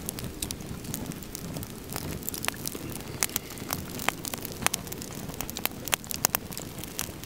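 Wood campfire burning: irregular sharp crackles and pops from the burning logs, several a second, over a low rumble of flames.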